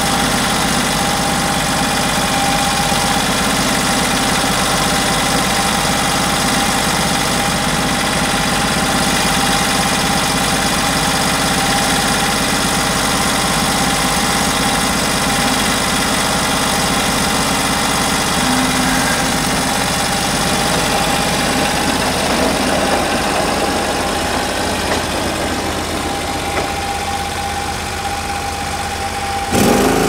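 Engine of a Norwood LumberPro HD36 portable bandsaw mill running steadily as its band blade saws slowly through a large gum log. The sound changes abruptly just before the end.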